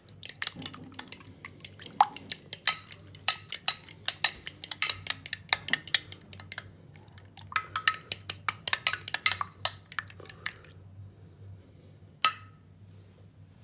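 A metal utensil clinking against a dish in quick, irregular strokes, as in whisking or stirring, stopping about ten seconds in; one more clink near the end, over a faint steady low hum.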